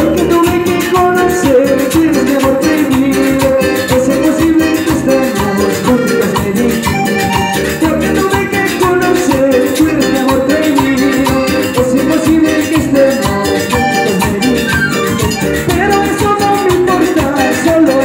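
Live band playing Latin dance music with a steady beat, with timbales, keyboard and guitar.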